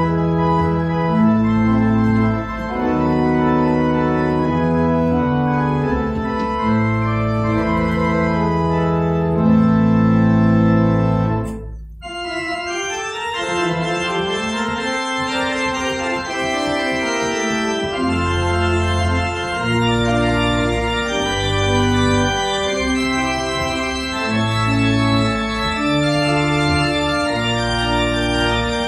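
Church organ playing a hymn tune in held chords over a deep pedal bass. The playing breaks off for a moment about twelve seconds in, then carries on.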